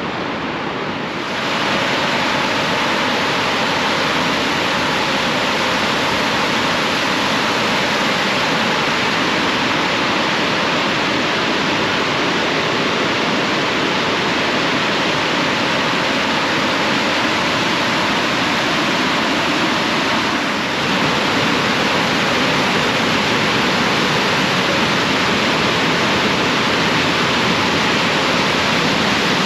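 Upper Mesa Falls on Henry's Fork of the Snake River: the steady, loud rush of a large waterfall heard close up. It grows louder about a second and a half in.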